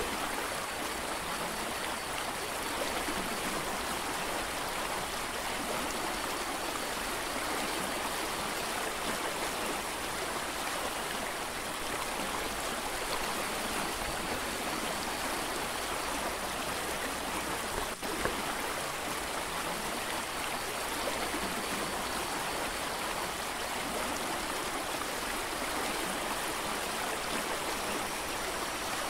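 Mountain creek rushing steadily over rocks, a constant even wash of water.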